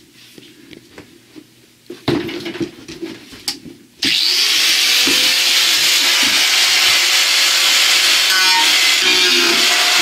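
A handheld electric angle grinder switches on suddenly about four seconds in and runs loudly and steadily. Before that there are only a few light knocks from handling.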